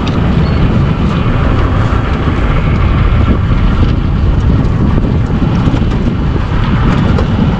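Wind buffeting the microphone: a loud, steady low rumble with no pauses.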